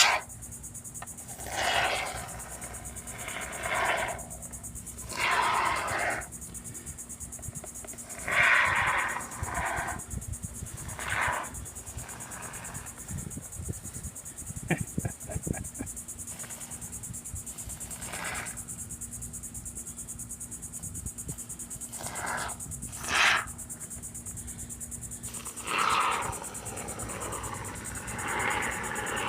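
Insects chirring steadily with a high, finely pulsed trill, with short irregular rustling and scraping handling noises every second or two, bunched in the first dozen seconds and again near the end.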